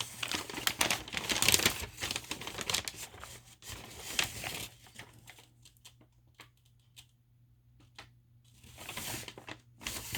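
A shopping bag and packaging being handled, crinkling and rustling for about the first five seconds, then scattered small clicks and taps, with another short rustle near the end.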